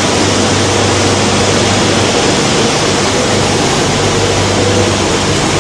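Foam tape coating machine line running: a loud, steady rushing noise of motors and air, with a steady low hum underneath.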